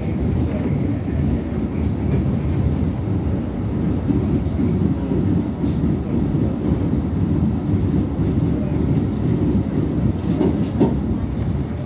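R68A subway train in motion, heard on board: a steady low rumble of steel wheels on the rails, with a few clicks over rail joints.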